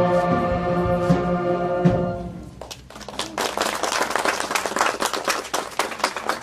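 A live ensemble ends its music on a long held chord, which stops about two and a half seconds in. Applause from the onlookers then starts and carries on steadily.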